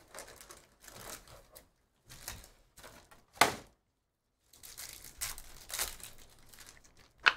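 Plastic shrink-wrap crinkling and tearing as a sealed box of trading cards is unwrapped, then a foil card pack crinkling as it is opened. Two sharp clacks stand out, one about three and a half seconds in and one near the end.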